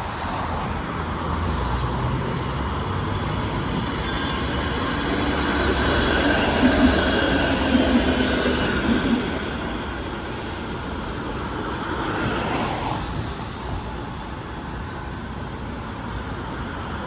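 A Toronto streetcar running on its rails, with a low rumble and steel wheels squealing. The sound builds to its loudest, with a few sharp clicks, about six to nine seconds in, then eases off.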